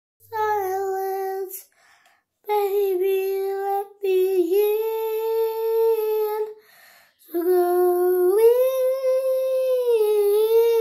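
A young girl singing in long held notes, in several phrases with short breaths between; in the last phrase her pitch steps up and then sinks back.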